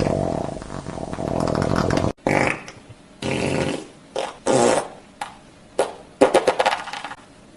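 A recorded fart sound effect: one long fart lasting about two seconds, then a run of about half a dozen shorter, separate farts.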